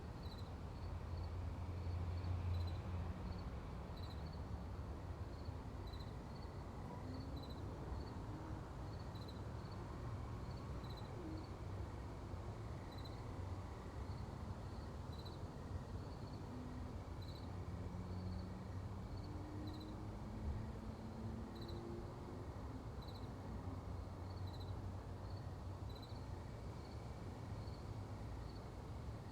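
Backyard ambience: an insect, likely a cricket, chirping in short, evenly repeated high chirps about once or twice a second, over a steady low rumble of distant road traffic.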